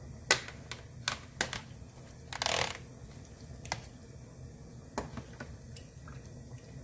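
Metal tongs clacking against a pot as blanching squid is turned in boiling water, five sharp clicks spread out, with a half-second rush of noise about two and a half seconds in as the tentacles go in. A low, steady bubbling of the water lies underneath.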